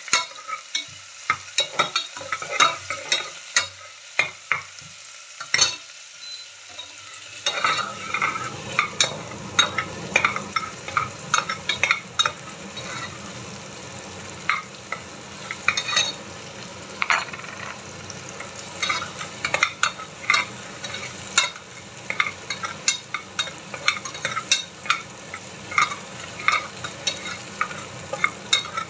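Metal ladle scraping and clinking against the bottom of a pressure cooker pot as shallots, garlic and lemongrass are stirred and sizzle in hot oil. The sizzle grows fuller about seven seconds in.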